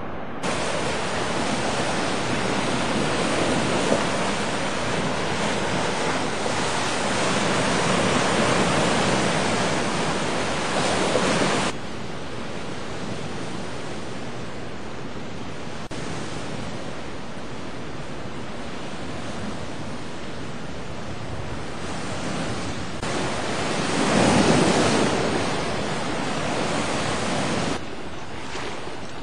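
Steady rushing noise of the flooded Arkansas River's fast current, mixed with wind on the microphone. The noise drops abruptly about twelve seconds in, swells again for a few seconds near the end, and drops again just before it stops.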